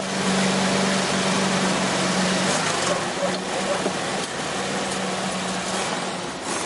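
Portable fire pump's engine running steadily at a constant speed.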